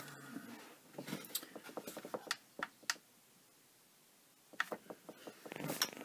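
A few faint clicks and taps as the DJI Phantom 3 Pro is plugged in and switched on. About half a second before the end, a faint steady electronic buzz starts as the drone powers up.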